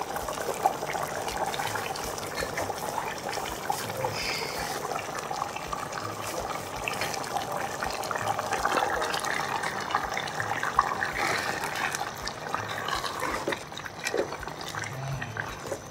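Pot of egusi soup simmering on the stove, a steady bubbling hiss.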